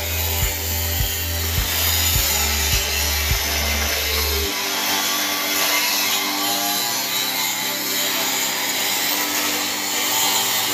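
Angle grinder with a cutting disc running against a metal gate frame, a steady harsh cutting noise. A low thudding music beat sounds under it for the first few seconds.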